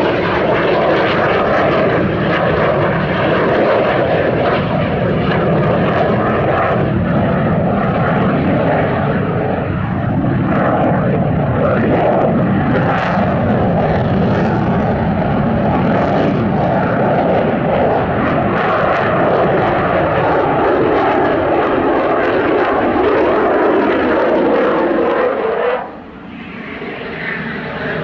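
Eurofighter Typhoon's twin Eurojet EJ200 turbofans running loud and steady through a display manoeuvre, with tones sliding in pitch as the jet moves. The noise drops sharply about two seconds before the end, then builds back up.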